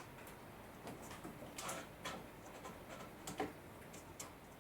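Faint, irregular light clicks and taps, a handful spread over a few seconds, from workpieces and hand tools being handled at the bench. No saw or motor is running.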